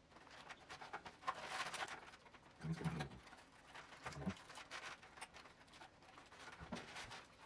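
Quiet handling of a cardboard 3D stadium puzzle: paper rustling and light clicks of pieces being pressed into place, with two brief low sounds about three and four seconds in.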